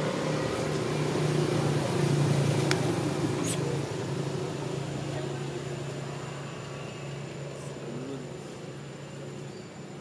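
A motor's steady low hum, loudest about two seconds in and then slowly fading, with a few faint clicks.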